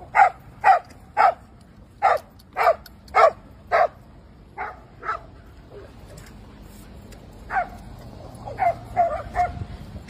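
A dog barking during rough play: a quick run of seven sharp barks in the first four seconds, then a few fainter scattered barks and a short flurry of barks near the end.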